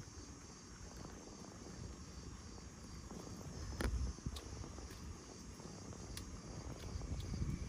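Insects chirring steadily in the background over a low rumble, with a few sharp clicks or snaps, the loudest about halfway through.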